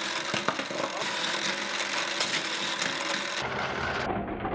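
Toy racetrack's battery-powered booster motor running steadily, a whirring buzz full of rapid plastic clicks as it drives the toy car along the plastic track. About three and a half seconds in, the sound turns duller and heavier in the low end.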